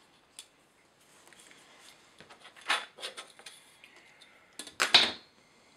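Workbench handling sounds: fingers rubbing on plastic card with a few light clicks, then sharper metallic clicks and, about five seconds in, the loudest clatter with a dull thud as the steel ruler is set down on the cutting mat.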